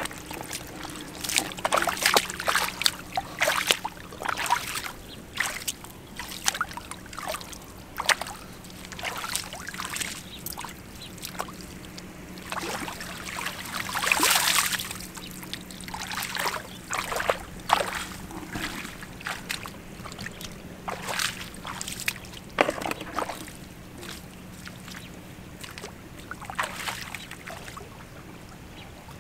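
Shallow muddy water splashing and sloshing as a mesh hand net is dipped and dragged through mud, with irregular splashes and a longer rush of water draining from the lifted net about halfway through. Near the end, bare feet wade through the water.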